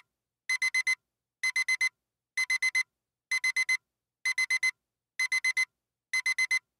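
Digital alarm-clock beeping: a high electronic beep in quick groups of four, about one group a second, signalling that the countdown timer has run out.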